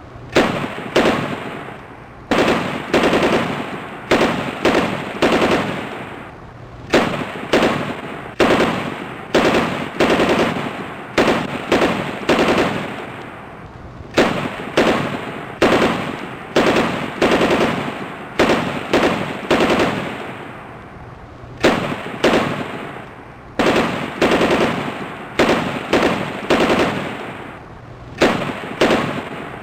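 Machine gun firing in short bursts of rapid shots, one burst every second or two with brief lulls. Each burst is followed by an echo that dies away.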